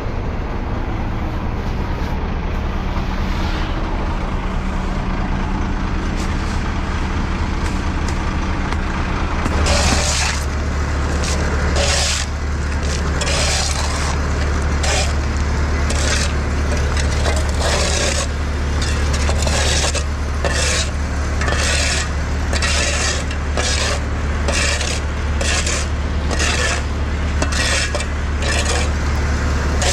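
Skid loader engine running steadily, revving up about ten seconds in, with repeated short scraping noises as it works.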